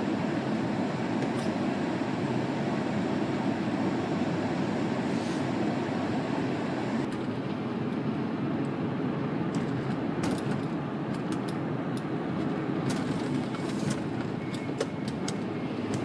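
Steady road and tyre rumble inside a moving 2005 Honda Pilot's cabin, with scattered sharp ticks in the second half.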